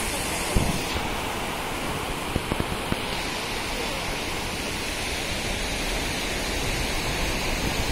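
Steady rushing noise of waves breaking on a sandy beach, with a few short knocks about half a second in and again between two and three seconds in.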